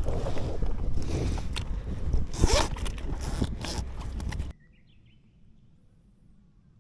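Loud scraping and rustling of handled gear, with a sharp zip-like rasp about two and a half seconds in. It cuts off suddenly about four and a half seconds in, leaving only a faint background.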